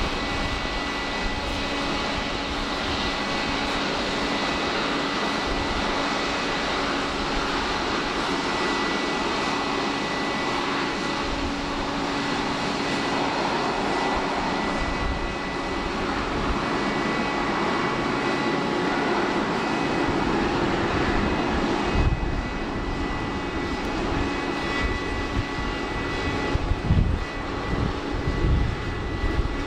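Boeing 747-8F freighter's four GEnx turbofan jet engines running steadily as the jumbo jet taxis past, a continuous rush with a steady whine. The sound grows a little louder after about twenty seconds and turns rumbly near the end as the wing and engines draw level.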